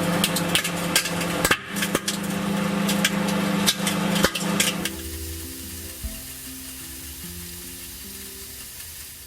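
Bacon spitting and crackling as it cooks in a running microwave, over the oven's steady hum. About five seconds in, the crackling and hum stop.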